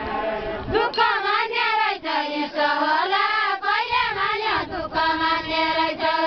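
A group of women singing a Deuda folk song together, in long phrases with wavering pitch and a held note near the end.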